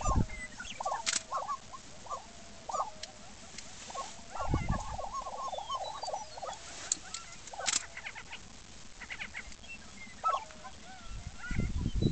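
Displaying male lesser prairie chickens on a lek calling over one another in many short yelping and gobbling notes, with a dense run of calls about four to five seconds in. Low thuds come at the start, about four and a half seconds in, and near the end.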